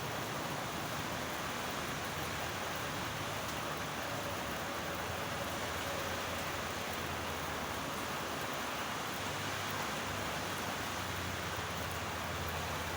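Steady rain falling, an even hiss with no breaks or separate drops standing out.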